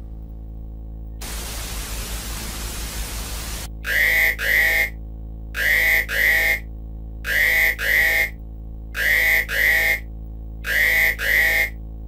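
A burst of static hiss lasting about two and a half seconds, then an electronic emergency alert tone: pairs of short beeps, five pairs about 1.7 seconds apart, over a steady low hum.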